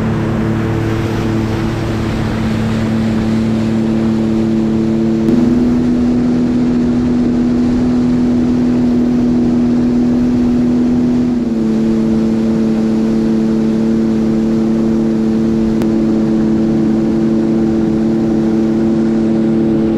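Sea-Doo GTX 170 personal watercraft cruising steadily, its three-cylinder Rotax engine and jet drive running over the rush of water along the hull. The engine note steps up slightly about five seconds in and eases back down a little past halfway.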